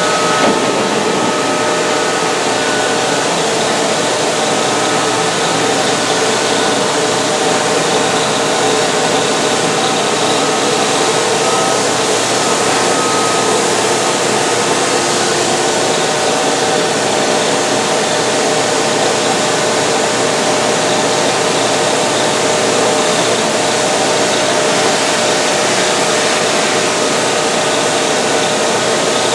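Mazak VTC-250D/50 CNC vertical machining center milling metal: steady spindle and cutting noise with a faint steady whine, chips being thrown off the end mill.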